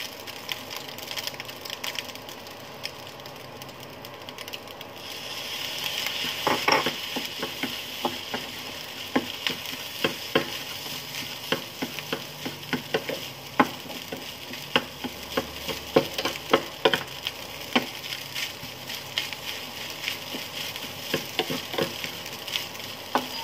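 Fried rice with egg and minced pork sizzling in a nonstick pan while a wooden spatula stirs and scrapes it, with frequent sharp taps of the spatula against the pan. The sizzle swells about five seconds in.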